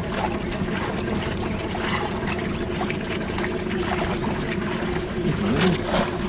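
Outrigger fishing boat at sea: a steady low hum with water and wind noise.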